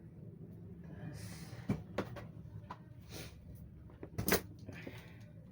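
Handling noise as a hard drive is taken out of a desktop computer's drive bay: a few sharp clicks and knocks, the loudest a little past four seconds in, with short scraping slides in between.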